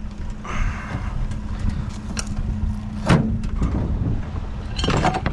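A vehicle engine idling with a steady low hum. Sharp knocks come about two and three seconds in, and a short rattling clatter near the end.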